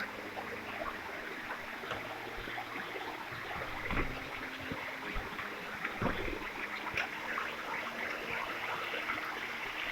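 Waterfall water rushing steadily, with a few brief sharper sounds about four, six and seven seconds in.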